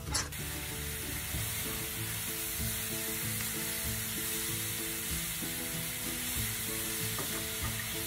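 Tomato quarters and serrano chiles sizzling steadily as they roast in a hot pan, with soft background music underneath. A brief sharp noise right at the start.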